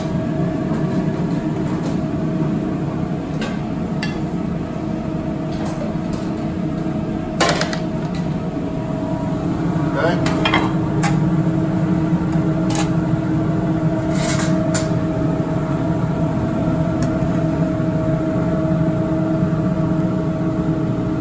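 Steady hum of restaurant kitchen ventilation fans, with scattered clinks and knocks of a metal spatula against pans and a plate as the steak is served.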